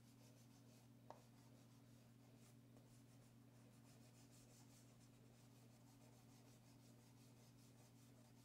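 Faint scratching of a chalk pastel stick on paper in quick repeated strokes as an area is filled in, over a steady low hum, with one small tick about a second in.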